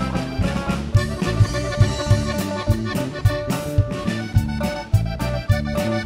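Button accordion, a Hohner Corona, playing a lively regional tune over a band's bass line and a steady beat of about two strokes a second.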